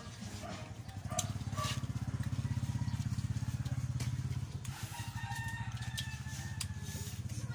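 Small motorcycle engine idling, a steady low, fast chugging that starts about a second in and eases off a little after four seconds.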